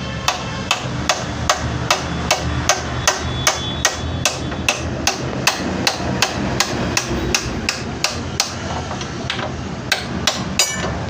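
Hammer tapping steadily on a motorcycle's seized disc brake caliper, about two and a half blows a second, to free the jammed piston. Near the end the blows turn into a few uneven taps.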